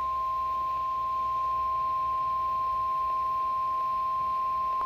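NOAA Weather Radio warning alarm tone: one loud, steady, high-pitched electronic beep held without a break. It signals that a warning message, here a severe thunderstorm warning, is about to be broadcast.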